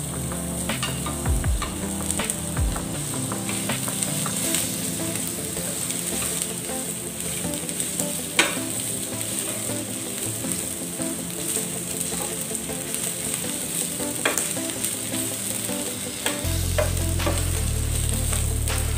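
Sliced onion sizzling as it sautés in hot olive oil in a nonstick frying pan, stirred with a spatula that scrapes and taps against the pan now and then, with a sharper knock about eight seconds in.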